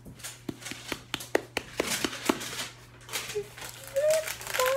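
A plastic bottle of glitter glue being squeezed out by hand: small clicks and crackles of the bottle, growing into a louder sputtering squirt near the end with a brief squeak.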